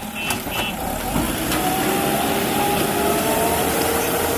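Heavy diesel vehicle engine running, its pitch slowly climbing from about a second and a half in. A string of quick high beeps stops within the first second.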